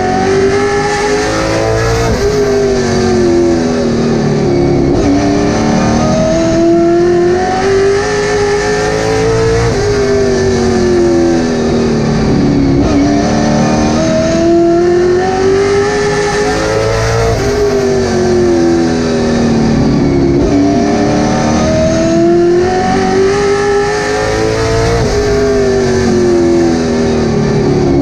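Late model stock car's V8 engine at racing speed, heard from inside the cockpit. Its pitch climbs steadily and then falls back in a repeating cycle about every seven and a half seconds, rising along each straightaway and dropping as the driver lifts for each turn.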